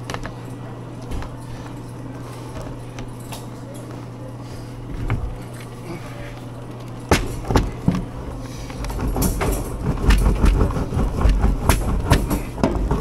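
Wooden gooseberry cutter: a sharp knock about seven seconds in as the top board goes onto the grooved base, then a fast, loud wooden rumbling and clattering as the board is slid back and forth over the candy rope to cut and roll it into balls.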